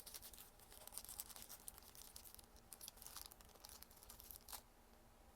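Faint rustling and light clicking from small diorama-kit pieces being handled and fitted together, in quick irregular bursts that stop about a second before the end.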